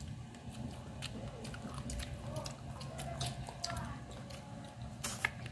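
Close-up mouth sounds of someone eating chicken and rice: chewing with many small wet clicks and smacks over a low steady hum, and a sharper click near the end.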